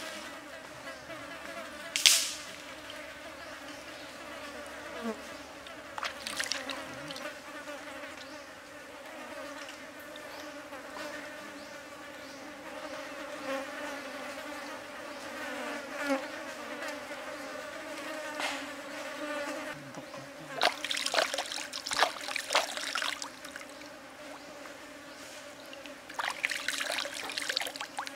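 Steady buzzing of insects in the background, with sharp splashes and water sloshing as a small squid is rinsed and cleaned by hand in a stream. There is a loud splash about two seconds in, and clusters of splashing around two-thirds of the way through and again near the end.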